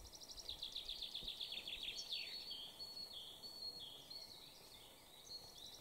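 A songbird singing: a rapid, high trill of repeated short notes, then a few held whistled notes, with the trill starting again near the end.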